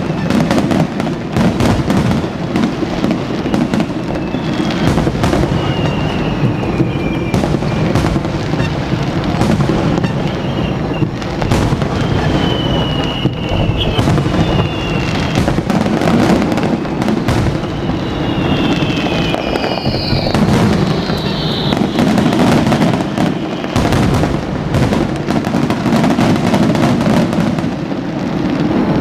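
Aerial fireworks display: a rapid, unbroken run of shell bursts and crackles over a low rumble, with a few high whistles gliding down in pitch.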